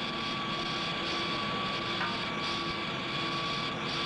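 Vertical barrel-drilling machines running steadily while shotgun barrels spin and drills bore into them: an even machine drone with a thin, steady high whine on top.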